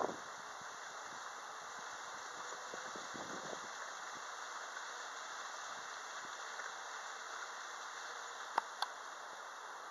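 Steady soft outdoor hiss. There is low rustling handling noise in the first three seconds or so, and two sharp clicks about a quarter-second apart near the end.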